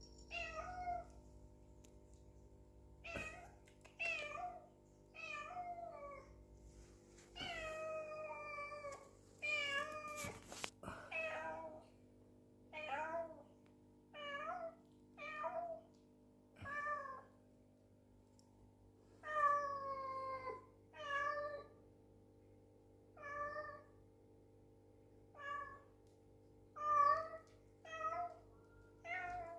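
A mixed-breed house cat meowing over and over, about twenty meows in all, each up to about a second and a half long, some drawn out and falling in pitch at the end.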